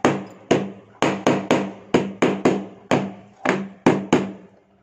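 A batter-filled metal cake tin knocked repeatedly on a stone countertop, about three sharp knocks a second in small bursts, stopping shortly before the end: tapping the pan to settle the batter and knock out air bubbles before baking.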